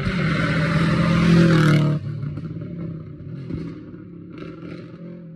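Rally car engine at full throttle as the car comes up the road and passes close by, with the pitch rising slightly. About two seconds in the sound drops suddenly to a fainter engine note as the car goes away into the distance.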